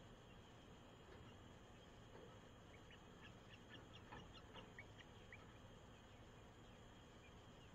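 Near silence: a faint steady hiss, with a brief loose run of soft, short, high chirps in the middle.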